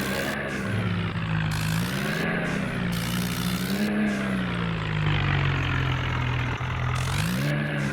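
Motor vehicle engine running and being revved, its pitch rising and falling several times, about every two seconds.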